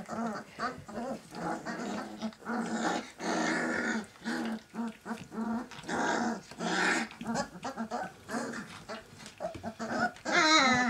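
A litter of 19-day-old Great Dane puppies playing, making many short puppy growls and squeaky calls one after another. Near the end one puppy gives a loud cry that falls in pitch.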